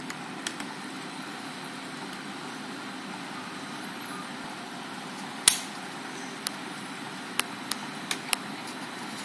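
Aquarium filter running with a steady low hum, broken by a few sharp clicks: the loudest about halfway through and several more in quick succession near the end.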